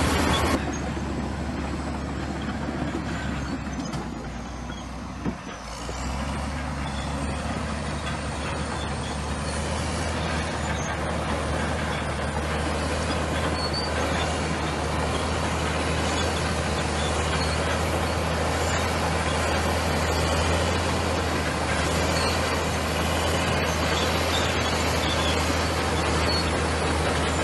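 Bulldozer's diesel engine running steadily with a low hum. It is quieter for the first few seconds, and after a short knock about five seconds in it is louder.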